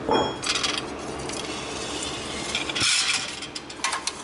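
Metal parts being handled: a light metallic clink, then a few short bouts of scraping and rubbing of metal against metal.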